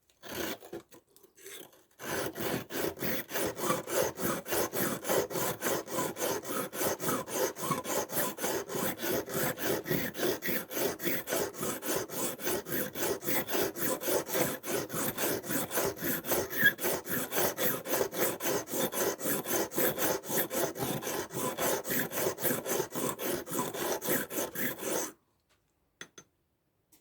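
Steel blade of a Victorinox pocketknife rubbed back and forth on a coarse sharpening stone, in quick even strokes of about four a second. It starts about two seconds in and stops near the end. The edge is being ground down to take out a small nick.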